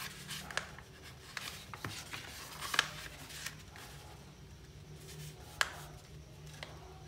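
A sheet of A4 paper rustling and crackling as it is folded diagonally and the crease pressed flat by hand, with a few sharp crackles, the loudest about three seconds in and another a little past five seconds.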